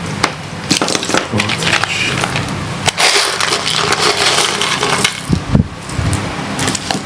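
Rummaging through a stash of loose electronic components: a busy run of rustling with many small, irregular clicks and clatters.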